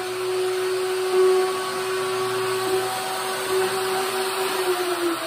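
Small trim router with a 1/8-inch roundover bit running with a steady whine as it rounds over the edge of a plywood window opening. Near the end it is switched off and the whine falls in pitch as the motor spins down.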